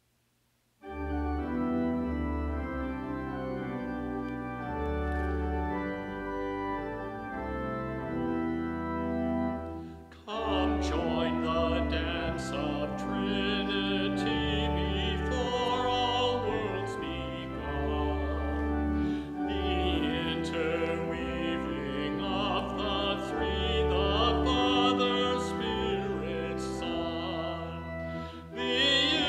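Church organ begins a hymn with sustained chords about a second in. About ten seconds in, a singer with a pronounced vibrato comes in and sings the hymn over the organ accompaniment.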